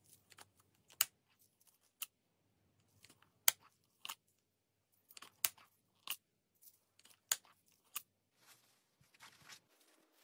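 Handling of a jointed vinyl doll: a string of sharp, separate clicks and taps, about eight over eight seconds. Near the end comes a short soft rustle of fabric as the doll is laid into a padded nylon case.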